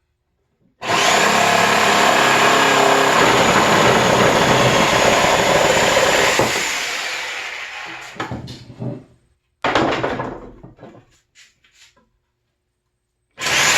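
Sawzall reciprocating saw cutting through pallet wood. It starts about a second in, runs steadily for about five seconds, then winds down as the trigger is let off. A second short burst comes a few seconds later, and the saw starts again just before the end.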